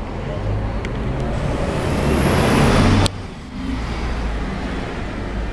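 Scania-chassis Caetano Levante 3 coach pulling away, its engine running low and steady. A loud hiss of air builds over about two seconds and cuts off sharply about three seconds in.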